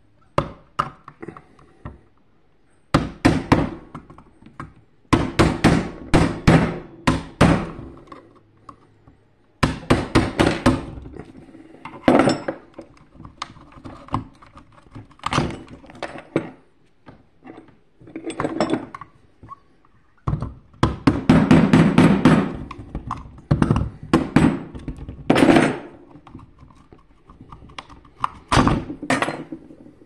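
Irregular clusters of knocks, clicks and scrapes from a vacuum cleaner motor being taken apart by hand: a screwdriver working at the carbon-brush holder and the metal motor housing being gripped and turned, with short pauses between the clusters.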